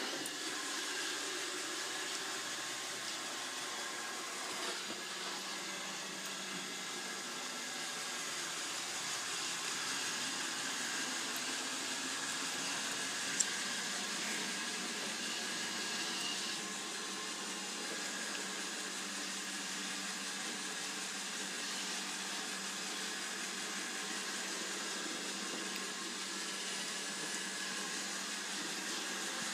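Roomba robot vacuum cleaner running steadily, its motor and brushes making an even whirring hiss, with one sharp click about halfway through.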